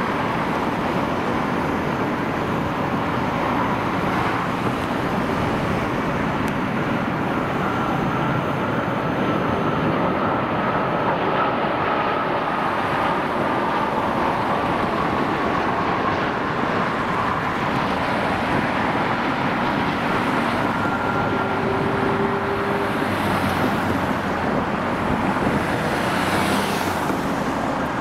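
Steady, dense road traffic noise. A faint high whine slowly falls in pitch through the middle.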